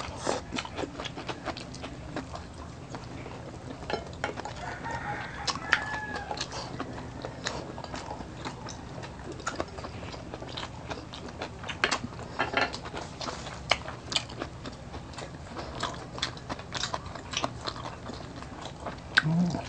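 Close-miked chewing and mouth smacking of people eating pork steak and rice by hand, heard as many short wet clicks scattered irregularly.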